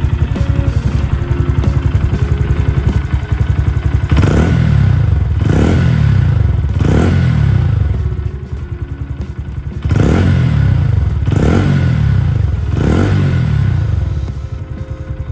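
Honda Grom 125's single-cylinder four-stroke engine through a Yoshimura R-77 Cyclone aftermarket exhaust. It idles, is blipped three times in quick succession, pauses, is blipped three more times, then settles back to idle.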